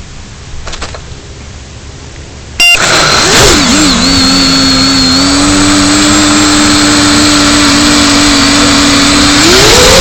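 Model airplane motor running, cutting in suddenly about a third of the way in over a faint hiss. It holds a steady pitch, then rises in pitch near the end as the throttle opens.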